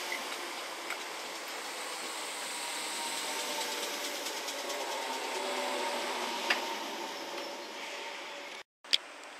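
Merseyrail electric multiple unit pulling out of the station, its traction motors whining faintly and rising in pitch as it gathers speed, over a steady rush of wheels on the rails. The sound cuts off suddenly near the end, followed by a sharp click.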